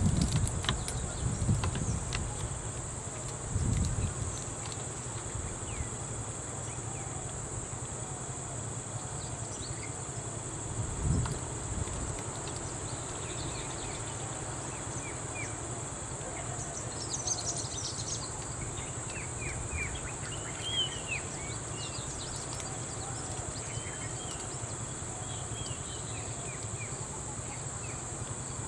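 Steady high-pitched drone of insects from the roadside jungle, with short bird chirps scattered through the second half and a few brief low rumbles in the first half.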